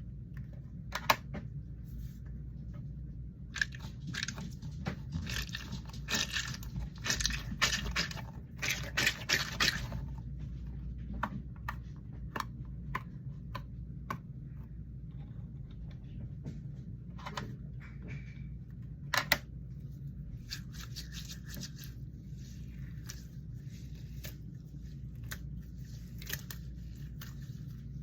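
Fidget toys handled close to the microphone: two long stretches of crackling, scratching sounds, with a few sharp clicks between them, over a steady low hum.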